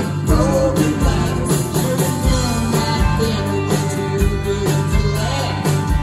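Rock band playing live: electric guitars, bass and drums with a steady beat.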